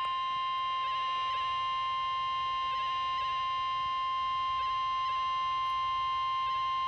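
NOAA Weather Radio warning alarm tone, the single 1050 Hz tone that comes before a warning broadcast and sets off weather alert receivers. It is one steady, unbroken high tone at an even level, with faint hiss under it.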